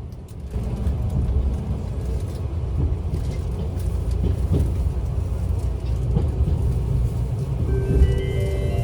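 Steady low rumble of a train running, rising about half a second in. Near the end a multi-note chime starts to play.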